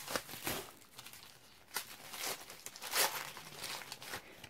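Packaging being unwrapped by hand to free a small candle jar: an irregular run of crinkling, rustling and tearing, with sharper crackles about two and three seconds in.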